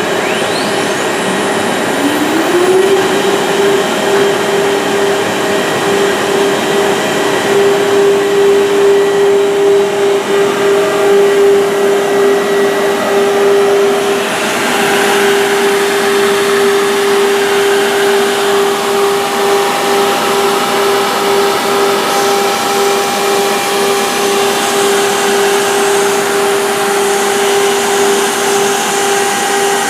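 A woodworking machine's motor spinning up over about three seconds to a steady hum, with constant machine noise around it that grows brighter about halfway through.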